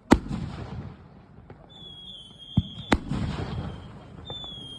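Funke Iskra 50mm firework shots: a sharp bang, then a high whistle dipping slightly in pitch that lasts about a second and ends in another sharp bang, with a duller thud just before it. A second whistle starts near the end.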